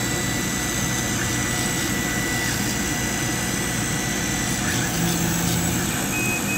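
Laser cutter cutting cardboard: a steady rushing air noise with a thin high whine that stops about a third of the way in and a short low hum around five seconds in. Near the end the machine beeps twice as the job finishes.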